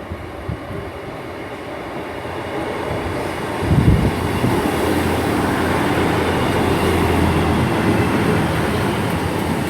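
Two-car British Rail Class 158 diesel multiple unit running in alongside the platform. Its underfloor diesel engine and wheels grow louder, with a low steady engine hum and a thump about four seconds in.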